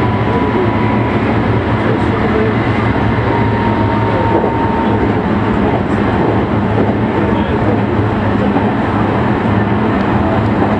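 Meitetsu electric train running along the track, heard from the driver's cab: a steady rumble of wheels on rail, with a faint thin whine in the first few seconds.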